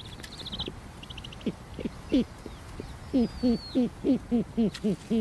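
Snowy owl calling in low hoots: a few single calls, then a quick, regular series of about four a second from about three seconds in. Faint high trilled peeps sound above them.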